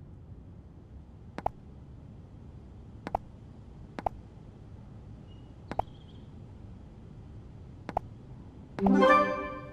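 Virtual-reality keypad key-press clicks, five single sharp clicks a second or two apart as numbers and symbols are tapped in. Near the end comes a short bright chime that rings and fades, the app's answer-accepted sound.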